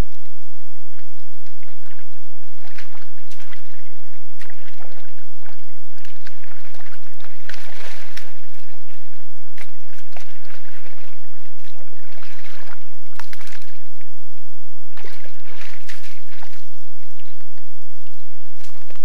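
Wild boars wallowing and moving in a shallow muddy pool: irregular wet sloshes and splashes, heaviest in a few spells in the middle and later part, over a steady low hum.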